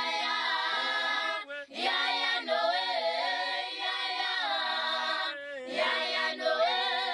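Unaccompanied choir singing a cappella, with two short breaks between phrases, about a second and a half and five and a half seconds in.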